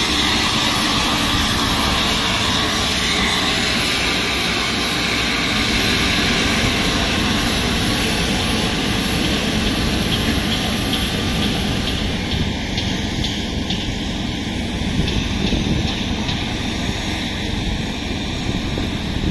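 Steady loud turbine-engine noise on an airfield apron: a full roar with a thin high whine over it, the whine fading about twelve seconds in while the roar carries on.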